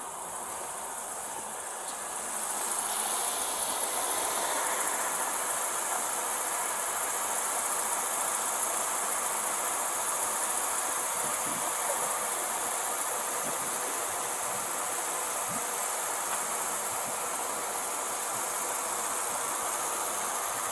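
Steady high-pitched hiss with no speech, getting louder about two seconds in and then holding level.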